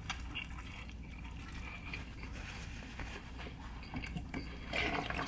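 A person chewing a mouthful of burrito: soft, wet mouth sounds that grow louder near the end.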